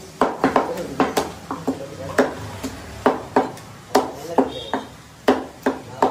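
A heavy butcher's cleaver chopping mutton into small pieces on a wooden log chopping block. The chops come quickly and unevenly, about three a second, with short pauses between runs.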